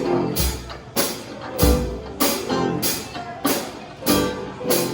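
Music with drums and guitar, a steady beat about every half second.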